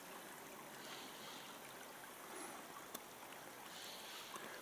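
Faint, steady rush of a flowing river, with a single soft click about three seconds in.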